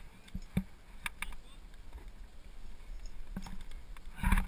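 Sporadic clicks and scrapes of a climber's hands and shoes moving on rock, picked up close by a helmet-mounted GoPro, with a short, louder burst of breath and voice near the end.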